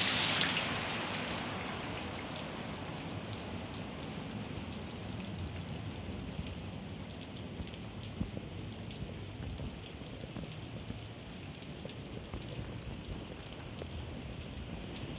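Heavy rain falling steadily: a continuous hiss with scattered taps of drops, a little louder for the first second or so.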